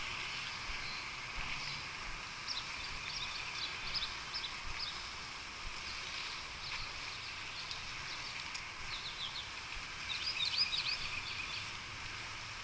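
Small birds chirping in quick clusters of short high calls, busiest at about two to five seconds in and again near the end, over a steady background hiss.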